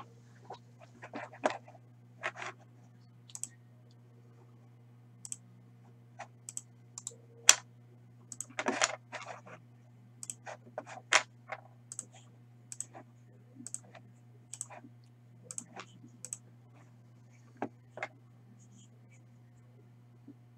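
Irregular clicks and taps of typing on a computer keyboard and clicking a mouse, with one longer, louder clatter a little before halfway, over a steady low electrical hum.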